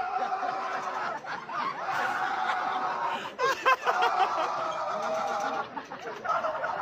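A group of teenagers laughing and calling out together in a steady wash of voices. One voice rises above the rest about halfway through, and the sound dips near the end.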